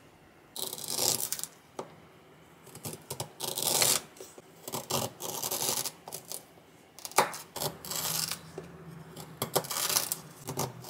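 Kitchen knife slicing peeled fresh ginger into thin slices on a plastic cutting board: irregular crisp cuts and taps of the blade on the board. A paper kitchen towel rustles briefly about half a second in.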